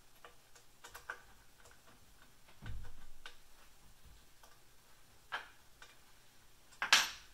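Scattered light clicks and taps of screws and a hex key against a CNC router kit's metal frame as its screws are fitted and tightened by hand, with a dull knock a little under three seconds in and a sharper, louder clack near the end.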